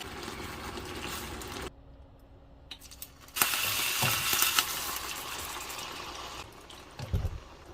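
Food frying in a pan: a loud, steady sizzle sets in about three and a half seconds in, after a short quieter stretch. A low thump comes near the end.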